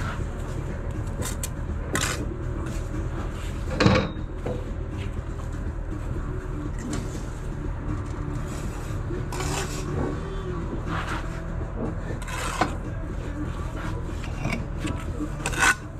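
Steel brick trowel working bricks and mortar, giving several sharp clinks and knocks. The loudest comes about four seconds in and another just before the end, over a steady low background rumble.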